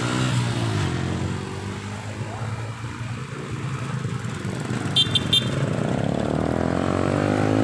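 Small motorcycle engines passing on a road. One goes by at the start, falling in pitch, and another approaches, growing louder, near the end. A horn gives three short beeps about five seconds in.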